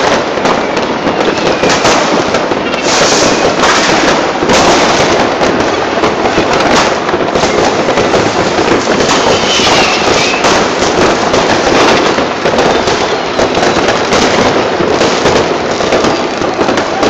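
New Year's Eve fireworks over a city: rockets and firecrackers bang and crackle densely and without a pause, with a faint whistle now and then.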